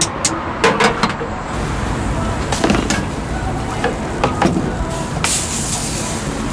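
Busy outdoor street-market ambience with traffic noise, broken by several sharp clicks and knocks in the first second or so and a few more midway, then a brighter hiss near the end.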